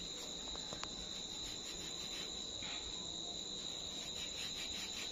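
Crickets trilling in one steady, continuous high tone over faint background hiss. The sound cuts off suddenly at the end.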